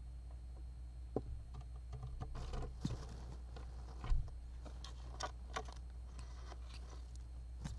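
Japanese giant flying squirrel moving about inside its wooden nest box: scattered scratches, clicks and rustling, with one dull thump about four seconds in, over a steady low hum.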